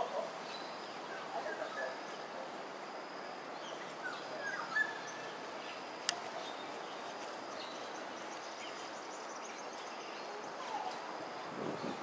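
Outdoor ambience: a steady high-pitched insect drone with scattered short bird chirps, and a single sharp click about six seconds in.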